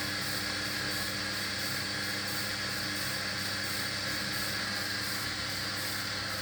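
Hoover HLW585DC washer dryer spinning its drum in the final spin. The motor gives a steady whine and hum over the whoosh of the drum, with no change in speed.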